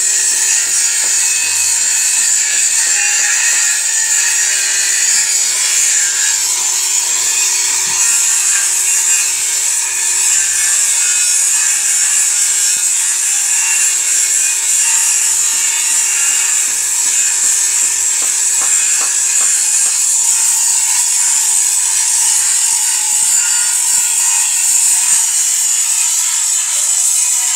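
Steady hiss of metalworking machinery with a constant motor hum underneath; the hum winds down and stops about 24 seconds in, as a machine is switched off.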